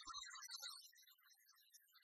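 Faint background music of short, scattered notes, with a couple of soft low thumps at the very start.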